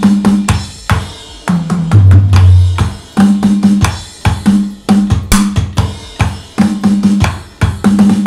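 Electronic drum kit played through speakers, a steady beat of loud drum and cymbal hits over low sustained notes.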